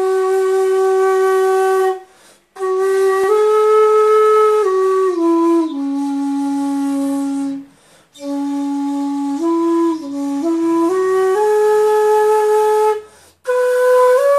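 Japanese shakuhachi, an end-blown bamboo flute, playing a slow melody of long held notes that step up and down, with short breaks for breath about two, eight and thirteen seconds in.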